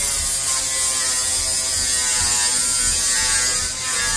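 Steady, high-pitched whine of a small electric motor.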